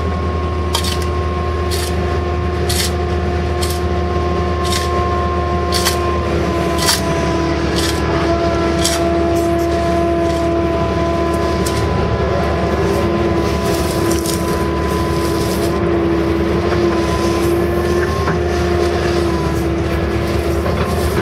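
Case CX160 excavator running, heard from inside the cab: the diesel engine and hydraulics hum steadily, with a whine that shifts pitch slightly a few times as the controls are worked. A sharp tick repeats about once a second through the first half.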